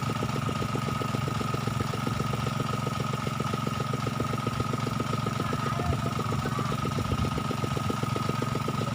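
A small engine running steadily at idle, with an even pulsing of about eight beats a second and a steady high-pitched whine over it.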